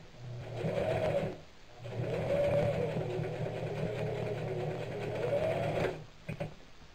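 Singer electric sewing machine stitching through fabric in two runs, a short one and then a longer one of about four seconds, the motor's pitch rising as it speeds up and falling as it slows. Two quick clicks follow near the end.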